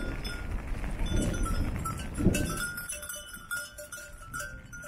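Goats bleating twice in the first half, then a small collar bell on one of them tinkling in short repeated rings as they move about.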